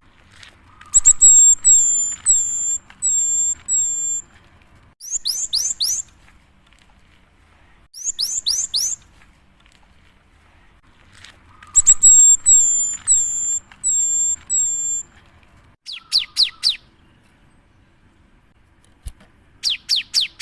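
Cinereous tit (gelatik batu) singing loud, high whistled phrases with pauses between: runs of evenly repeated hooked notes, about two a second, alternate with quick bursts of three or four fast descending notes.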